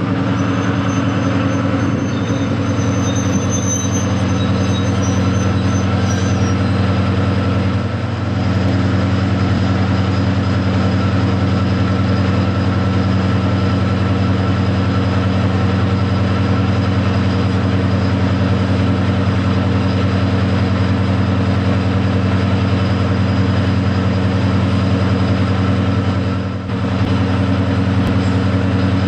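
Class 55 Deltic locomotive's twin Napier Deltic two-stroke diesel engines running steadily with the locomotive standing, a deep even drone that dips briefly twice.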